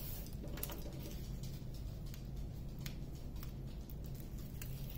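Hand smoothing the protective release paper down over a diamond painting canvas's adhesive: faint paper rustling with scattered light ticks and crackles.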